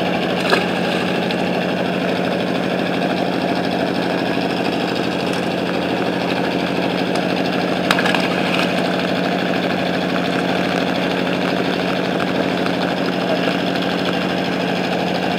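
An engine running steadily at a constant speed, with a brief click about half a second in and another around eight seconds in.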